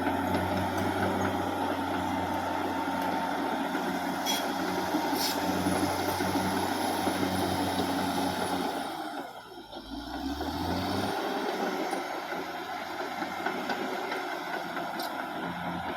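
Caterpillar D6R XL bulldozer's diesel engine running steadily, with a few sharp metallic clanks. About nine seconds in the engine drops away briefly, then revs back up with a rising pitch.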